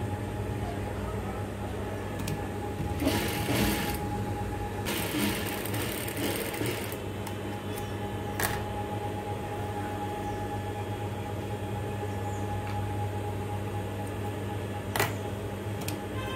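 Flat-bed sewing machine running with a steady motor hum as a side seam of a chudithar pant is stitched. Two louder stretches of noise come about three and five seconds in, and there are a few sharp clicks.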